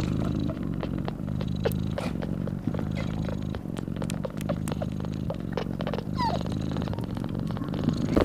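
Calico mother cat purring steadily and loudly while nursing her newborn kittens. Small clicks are scattered over the purr, with a brief falling squeak about six seconds in.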